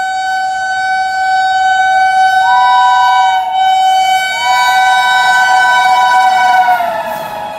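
Train horn sounding one long steady note, joined twice by a second higher note, about two and a half seconds in and again about four and a half seconds in. Near the end both notes fall in pitch together and the horn fades.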